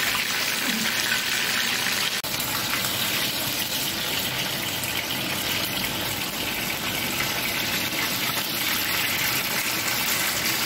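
Dried milkfish (bangus) frying in hot oil in a pan: a steady, dense sizzle, with a brief break about two seconds in.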